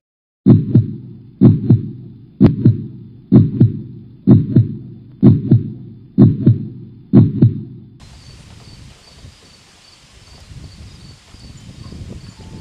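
Low double-beat thumps like a heartbeat, eight pairs at about one a second, that stop about eight seconds in. After that comes faint outdoor ambience with a steady, rhythmic insect chirping.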